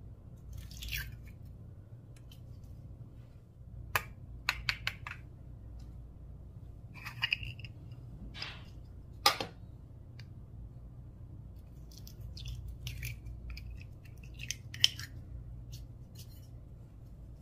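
Colourful slime with mini balls mixed in being worked: irregular sticky clicks and crackles, with a few sharp snaps.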